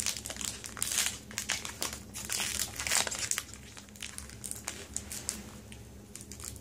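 Foil Pokémon booster-pack wrapper crinkling as it is handled and torn open. A dense run of crackles fills the first three seconds or so, then lighter, scattered crackles follow.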